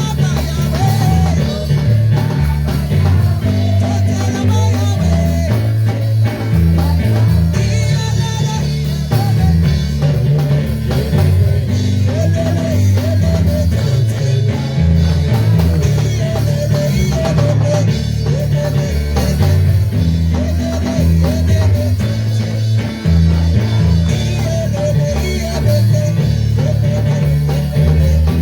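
Live church worship music: a band with electric bass, guitar and drum kit, with voices singing over it.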